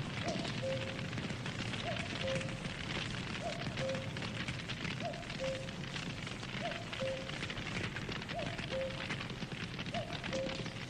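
Wood campfire crackling and popping steadily. Over it, a low two-note call (a short upward chirp, then a brief held lower note) repeats about every second and a half.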